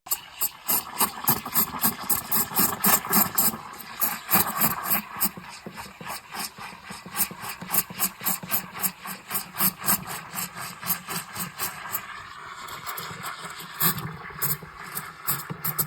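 JASSY 20-bar espresso machine running: a loud hissing, squealing mechanical noise pulsing quickly and regularly, about five times a second, starting abruptly.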